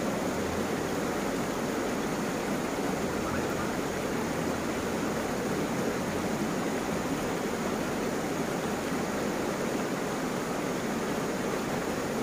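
Shallow rocky river flowing, a steady rush of water running over stones.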